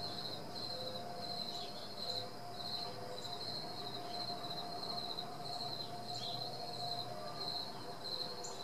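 A high, insect-like trilling chirp repeating in short trills with brief gaps, over a faint steady hum.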